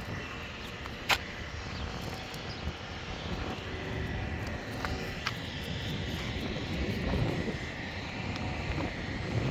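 Steady drone of vehicle engines, with a sharp click about a second in.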